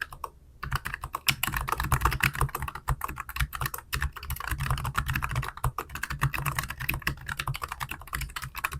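Fast typing on a Keychron K15 Pro low-profile mechanical keyboard fitted with Gateron low-profile tactile Banana switches: a dense, continuous clatter of keystrokes after a brief pause right at the start.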